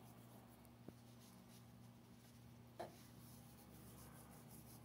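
Near silence: a faint rustle of dried oregano being crumbled between fingers over the pizza, over a steady low hum. There is a faint click about a second in and a short, sharper sound near three seconds.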